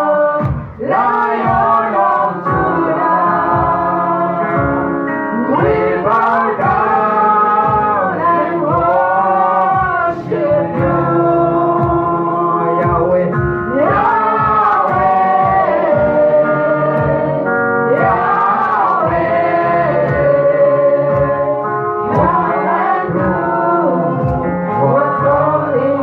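A man singing a gospel worship song into a microphone, with long held notes, over instrumental backing with a steady beat.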